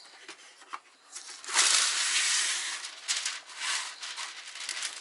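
Paper rustling and crinkling as a fresh sheet is pulled off and wrapped around a log of cookie dough. The loudest rustle starts about one and a half seconds in and lasts about a second and a half, followed by shorter scrapes.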